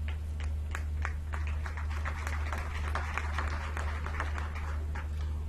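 Audience applauding: a spread of scattered hand claps, over a steady low electrical hum.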